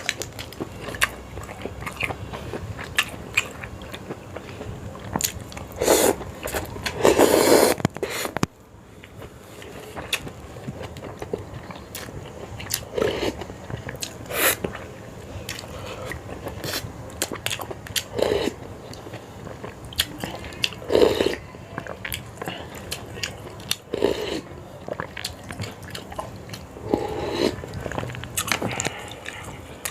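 A person eating Sarawak laksa close to the microphone: chewing with small clicks and smacks throughout, and several louder slurps of noodles and broth, the longest about six to eight seconds in.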